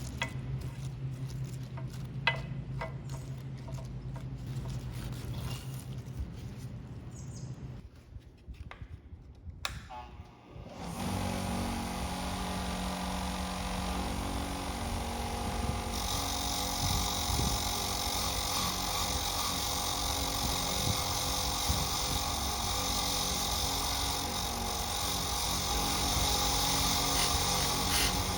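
A small power tool running steadily, starting about eleven seconds in, after a stretch of low hum and scattered clicks.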